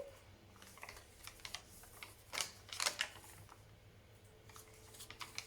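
Paper and card being handled as pages of a handmade junk journal are turned: scattered light taps and rustles, the two loudest a little under two and a half and three seconds in.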